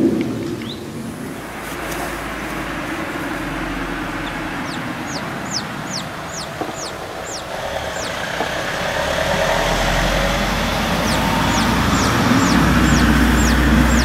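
Bantam chicks peeping: two runs of short, high, downward-falling peeps at about three a second, one about five seconds in and one near the end, over a steady rushing background noise.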